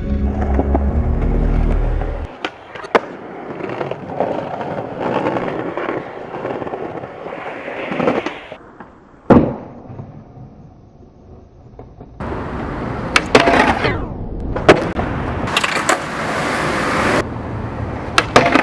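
Skateboard wheels rolling on concrete, broken by several sharp clacks of tail pops and board landings. About three-quarters of the way through comes a longer scraping run, a board grinding or sliding along a ledge.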